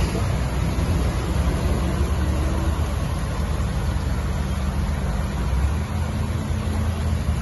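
Traffic moving slowly through a flooded street: car and lorry engines running steadily under a constant wash of water churned up by the tyres.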